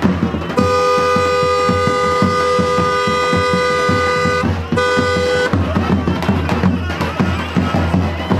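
A car horn sounds one long steady blast of about four seconds, then a short second toot, over ongoing music.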